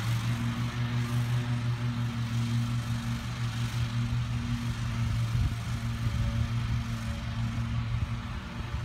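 Riding lawn mower engine running at a steady speed, a constant even hum as it drives across the field.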